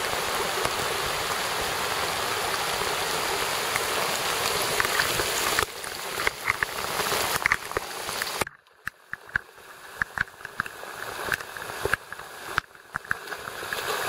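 High, rain-swollen creek rushing: a steady water noise that drops off sharply about eight seconds in, leaving fainter water sound with scattered clicks and taps.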